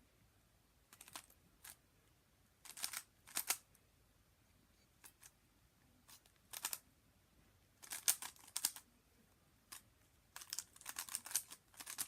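Plastic speedcube being turned mid-solve: bursts of rapid clicking turns with short pauses between them, the longest run of turns near the end.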